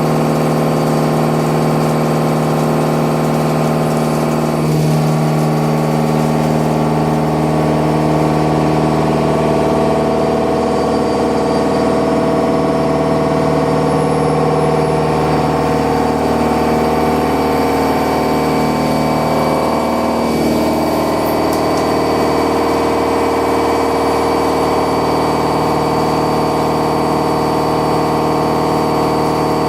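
Milling machine running with a steady hum. About five seconds in its pitch slides down, and about twenty seconds in it slides back up.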